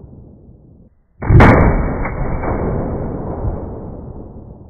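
A single shot from a 7-inch-barrel 5.56 AR-15 short-barreled rifle with a muzzle brake, played back slowed down. The shot comes about a second in as a deep, drawn-out boom that dies away over about three seconds. Before it, the tail of the previous shot fades out.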